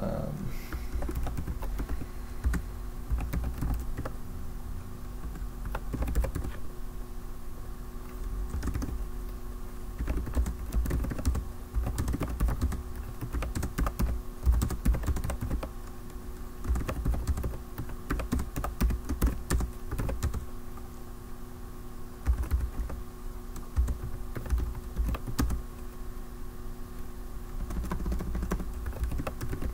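Typing on a computer keyboard: uneven runs of rapid keystrokes broken by short pauses.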